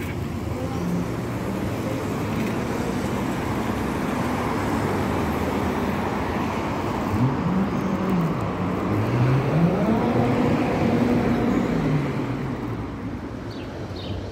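Road traffic on a city street: passing cars, the noise swelling through the middle and fading toward the end. One engine's pitch rises and falls a few times past the middle.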